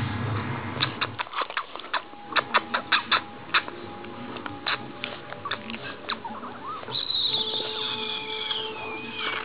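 Shar Pei puppy making mouth noises close to the microphone: a run of sharp clicks and smacks, several a second through the middle. Near the end comes one long high whine, falling slowly in pitch.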